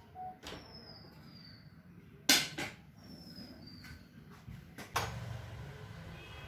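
Kitchen clatter of pans and utensils at a gas stove: a few knocks and clicks, the loudest a sharp clank about two seconds in. Faint high falling whistles sound behind them.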